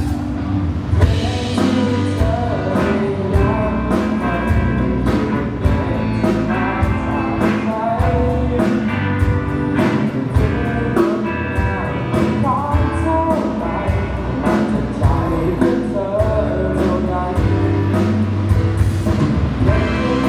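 Pop-rock music with drums, bass and guitar, and a singing voice over them, playing steadily.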